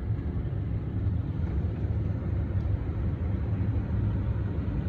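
Indoor air handler of a 4-ton two-stage heat pump running at its second-stage, high blower speed: a steady rush of air with a low hum, much noisier than in first stage.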